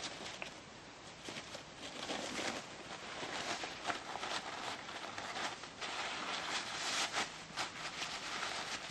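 Paper towel being folded and crumpled by hand around crumbled sparkler powder, with irregular rustling and crinkling throughout.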